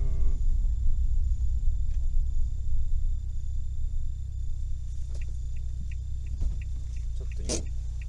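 Low rumble of a car driving on a wet road, heard inside the cabin, easing off about halfway as the car slows. Then crickets chirp steadily, about three short high chirps a second, with one short sharp noise near the end.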